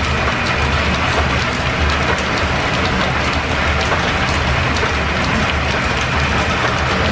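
Steam-driven overhead line shaft running, its pulleys and flat belts turning: a steady mechanical rumble and clatter with many light ticks.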